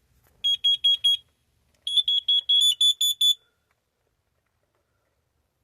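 Carbon monoxide alarms beeping with short, high-pitched piezo beeps: a quick group of four, then about a second later a longer run of about eight beeps from more than one unit out of step. The four-beep pattern is the carbon monoxide alarm signal, here set off by carbon monoxide released in a test.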